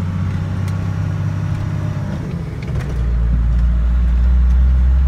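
Cummins inline-six diesel in a Ford pickup running, heard from inside the cab. Its low drone gets noticeably louder about three seconds in, as the engine is given throttle. The engine is running with its fuel shutoff solenoid held by a bungee strap and an idle set so low it risks stalling.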